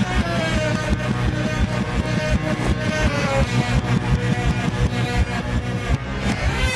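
Rock-and-roll song played backwards, with a steady, evenly repeating beat and drawn-out gliding tones above it.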